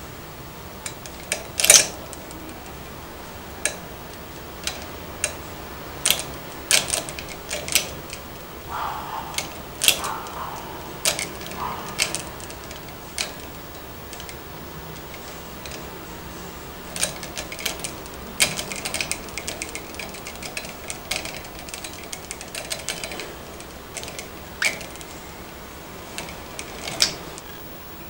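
Budgerigar pecking with its beak: scattered sharp clicks and taps, some in quick clusters, the loudest near the start.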